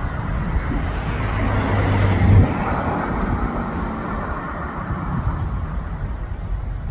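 Tail end of a freight train rolling away on the rails: a steady rumble and rattle from the cars' wheels, loudest a couple of seconds in and then slowly fading.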